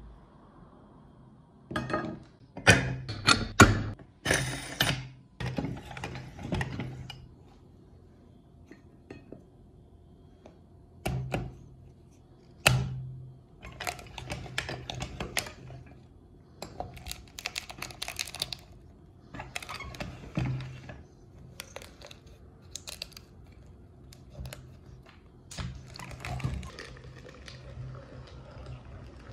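Irregular clunks, knocks and scrapes as frozen chocolate-coated ice cream bars are handled and forced through a metal meat grinder. The sounds come in several clusters with short pauses between.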